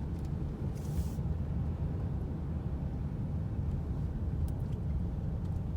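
Steady low rumble of a car's engine and tyres heard from inside the cabin while driving, with a brief hiss about a second in.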